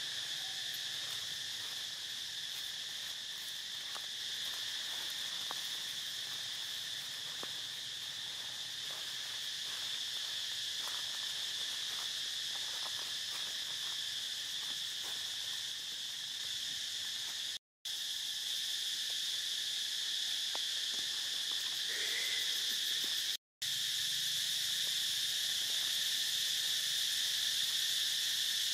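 Steady, high-pitched chorus of insects droning without a break, with faint scattered ticks underneath. The sound cuts out for a moment twice in the second half.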